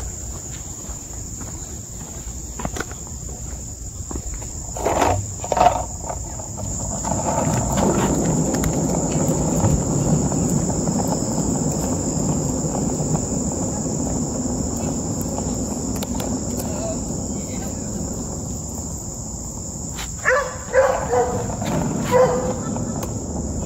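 Insects droning steadily at a high pitch. A low rushing noise rises under them about a third of the way in and fades again. Short sharp sounds come twice before that and again several times near the end.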